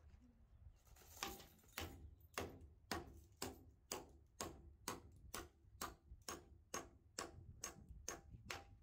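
Claw hammer tapping a concrete anchor bolt down into its drilled hole through a gazebo post's metal base bracket, about two sharp metal strikes a second in a steady run starting about a second in.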